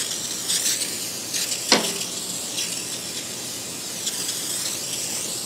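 Aerosol can of Radnor anti-spatter spray hissing as it is sprayed over a welding table, in short spurts at first and then steadily, with one sharp click a little under two seconds in. The hiss cuts off suddenly near the end.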